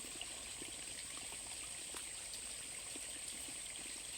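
Steady rush of flowing water, like a stream running, with a continuous high-pitched whine above it and a few faint small ticks.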